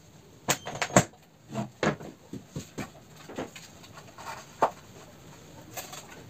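Scattered short knocks and clacks of wooden pieces and tools being handled and set down on a plywood table-saw top, a cordless drill among them.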